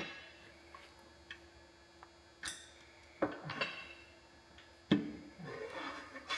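Metal clinking and knocking on a Caterpillar D4600 engine block as parts are handled around the open cylinders: a few separate sharp clinks, spread a second or so apart, with a faint steady hum in the middle.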